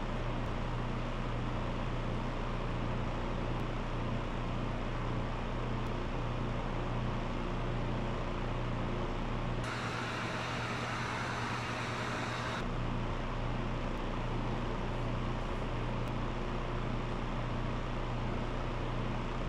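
Steady low electrical hum over an even air-noise hiss, the background drone of a room. About ten seconds in, a louder hiss joins for about three seconds and then cuts off sharply.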